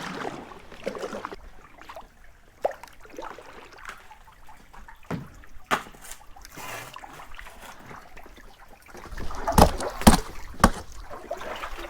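Kayak paddling on a creek: quiet paddle strokes and water trickling and dripping, with a few loud sharp knocks near the end.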